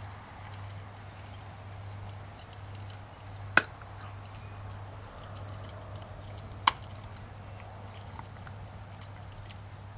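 Leonberger puppy gnawing on a raw chicken frame: faint chewing with small crunching clicks, and two sharp cracks about three seconds apart.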